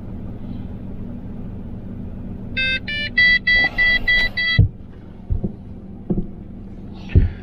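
Holden VZ Commodore dashboard warning chime: a quick run of about seven short electronic beeps, roughly four a second, over a steady low engine idle. It announces a 'Check oil' warning, which the mechanic takes to mean the engine could be low on oil. A few short knocks follow.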